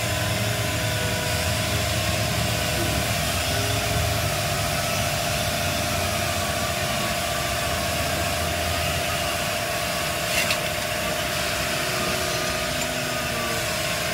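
Oxy-acetylene cutting torch flame hissing steadily, with a constant whistle-like tone in it. A short click about ten seconds in.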